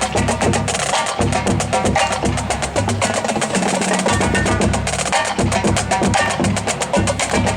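Marching drumline playing a cadence: a fast, dense snare rhythm over low drum tones that shift in pitch.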